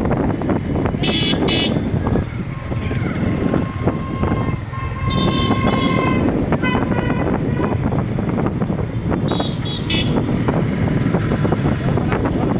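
Wind rumbling on the microphone of a moving motor scooter in traffic, with vehicle horns honking several times: two short beeps about a second in, a longer honk through the middle, and more beeps near the end.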